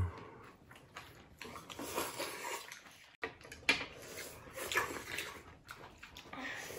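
Close-miked eating of ramen: noodles and broth slurped and chewed in irregular bursts, with a few small clicks.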